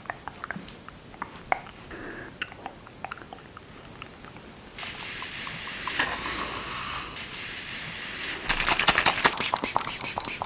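Close-miked makeup-removal sounds: scattered small clicks and sticky crackles, then a steady hiss in the middle, then a dense stretch of crackling and rustling with sharp clicks near the end.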